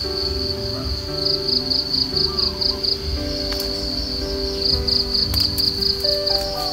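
Insect chirping, high-pitched, in trains of rapid pulses several a second broken by short pauses, over held low notes of soft background music.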